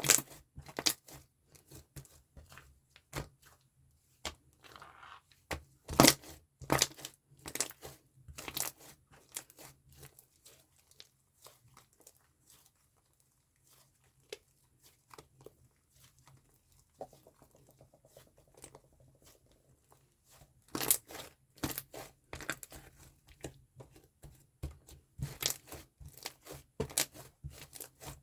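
Slime being squeezed and kneaded by hand, giving irregular sharp crackles and pops, with a quieter pause near the middle.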